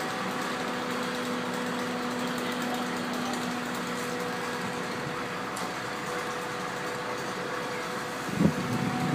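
Fire-brigade aerial ladder truck's engine idling with a steady hum. Wind buffets the microphone about a second before the end.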